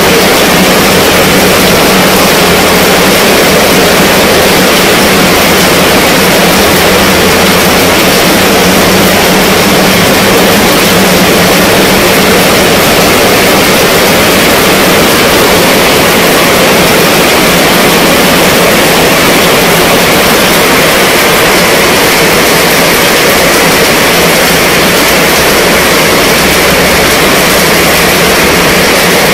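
Heavy rain falling on a fabric canopy tent overhead: a loud, steady, unbroken hiss of drops on the cloth.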